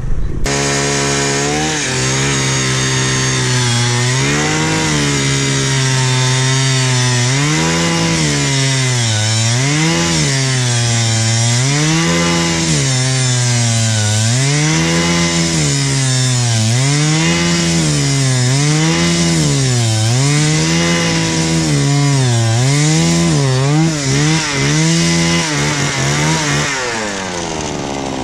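Gas-powered two-stroke ice auger engine running and drilling, its speed rising and falling every second or two. It starts suddenly and changes near the end.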